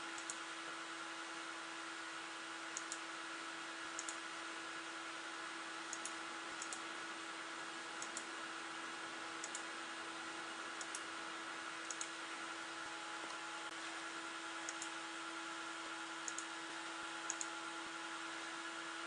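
Computer mouse button clicks, about a dozen, some in quick pairs, spaced a second or two apart. Under them runs the steady whir and hum of an open desktop PC's cooling fans.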